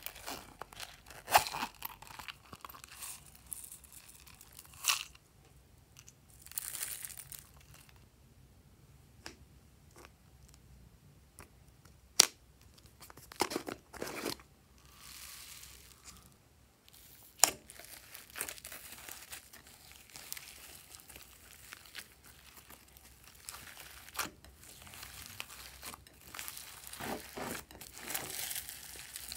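Close-up slime mixing in a glass bowl: a few sharp clicks and taps with short crinkly rustles, then from about halfway a denser crackling and crunching as hands knead glossy slime packed with foam beads and glitter.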